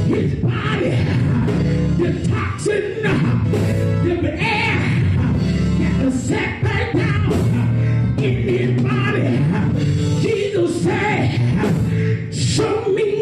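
A man singing gospel into a microphone, amplified through a PA, over live band accompaniment with a steady bass and drums.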